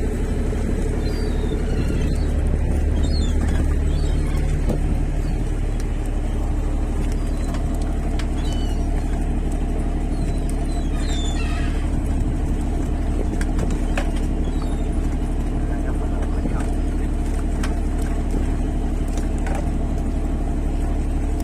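Fishing trawler's engine running steadily, a constant low drone, with faint short high calls heard now and then over it.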